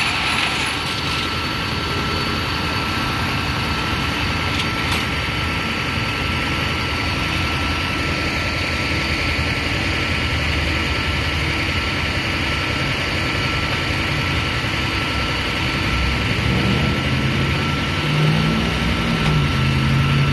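Tow truck engine running with a steady rumble, its pitch wavering up and down in the last few seconds.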